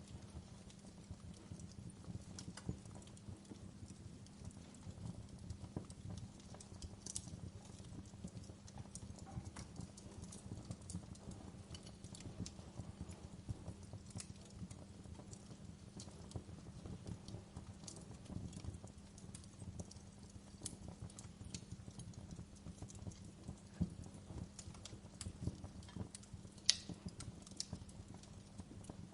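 Campfire burning with a steady low rumble and irregular crackles and pops of the burning wood, one sharper pop near the end.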